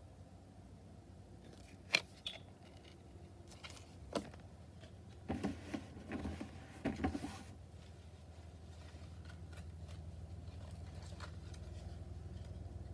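Hands handling trading cards: a few sharp taps and clicks, then a short run of scraping and rustling about halfway through, over a low steady hum that grows a little louder near the end.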